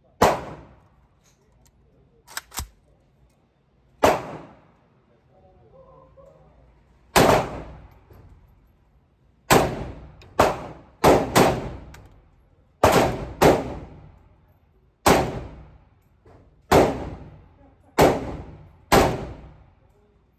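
Century Arms VSKA AK-pattern rifle in 7.62x39 firing about a dozen single semi-automatic shots at an uneven pace, some in quick pairs, each echoing in an indoor range. Two fainter cracks come about two and a half seconds in.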